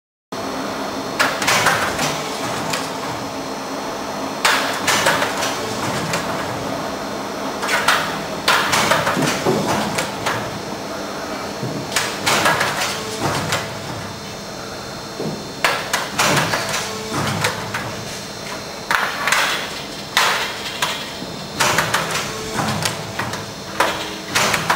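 Henrob self-pierce riveting tool setting rivets into light-gauge steel wall framing, a sharp burst with each rivet set, repeated every few seconds over a steady machine hum.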